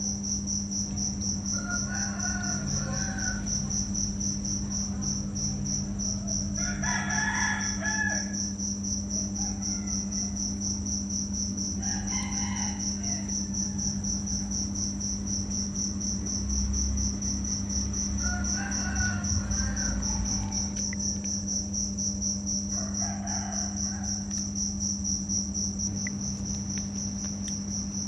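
An insect's steady high-pitched trill, with a low steady hum beneath it and a short call about every five seconds.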